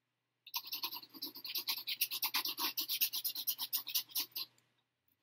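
Pencil scratching on paper in quick back-and-forth strokes, several a second, scribbling bark lines on a tree trunk. It starts about half a second in and stops shortly before the end.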